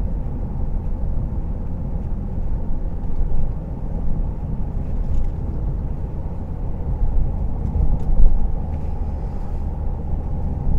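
Inside a moving car, the engine and tyres make a steady low rumble on the road, with a couple of brief louder bumps.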